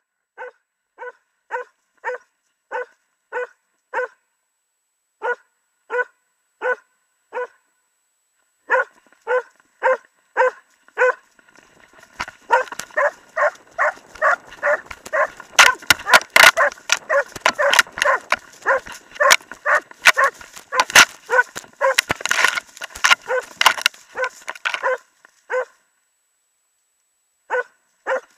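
Jämthund (Swedish elkhound) bay-barking at a moose it is holding at bay (ståndskall), in a steady run of barks about one and a half a second with short pauses. From about twelve seconds in, the barks come faster under a burst of rustling and knocks from the dog moving with the camera on it. The barking stops a few seconds before the end, then resumes.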